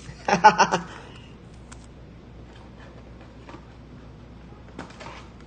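A short spoken word, then faint scattered clicks of trading cards being handled and sorted, over a quiet room.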